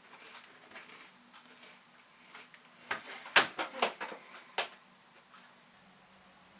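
A quick cluster of sharp clicks and knocks about three seconds in, the loudest a little after, with faint scattered ticks around them.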